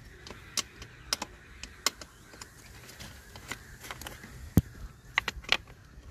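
Scattered sharp clicks and taps of metal bolts being handled and set into a hard plastic scooter body panel, with one louder knock about three quarters of the way through and a quick run of clicks just after.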